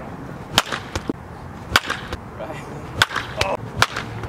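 Intro sound effects: a series of about seven sharp cracks at irregular intervals, each short and ringing briefly.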